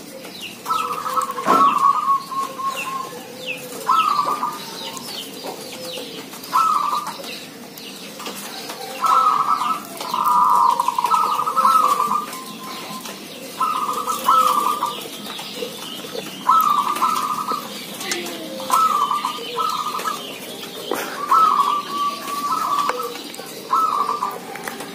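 Several caged zebra doves cooing back and forth. Their calls come in short bursts of quick, trilled notes, one every couple of seconds, with faint chirps of small birds above them.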